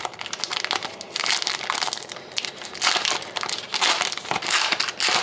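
Foil wrapper of a trading-card pack crinkling and crackling in the hands as it is worked and torn open: a continuous run of dense, irregular crinkles.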